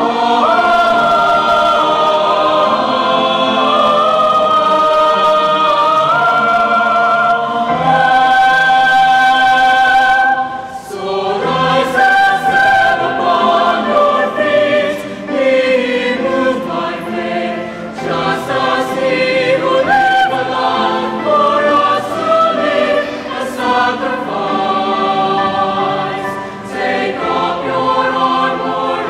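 Mixed choir of women and men singing in harmony. Long held chords for about the first ten seconds, then a brief dip and shorter, moving phrases.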